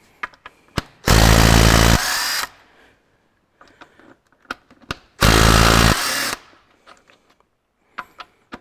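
Makita DTW253 18-volt cordless impact wrench hammering in two bursts of about a second and a half each, undoing connecting-rod cap nuts. Short metallic clicks of socket and nuts come between the bursts.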